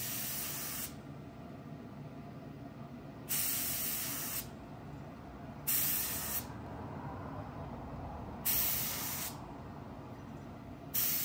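Harbor Freight gravity-feed paint spray gun, on compressed air, spraying single-stage 2K urethane in short hissing bursts of about a second each, every two to three seconds: a test spray to check the mix and spray pattern.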